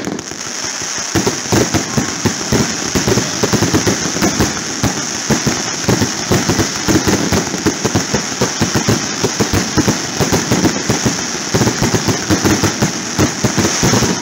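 Fireworks going off in a rapid barrage, with bangs crowding several a second from about a second in, over a steady high-pitched crackling hiss.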